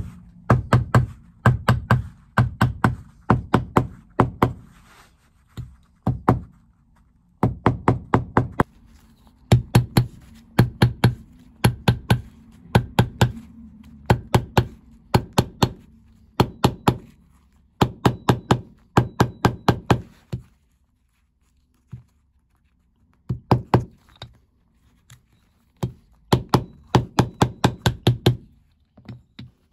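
Leather hammer with a round domed face tapping down the leather around a jacket's pocket opening: runs of quick, sharp knocks, several a second, broken by short pauses.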